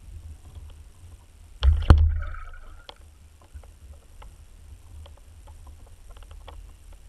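Pike striking a dead-bait fish, recorded underwater: a sudden heavy thump and swirl of water about two seconds in that dies away over a second. Faint scattered clicks and a low steady water rumble run around it.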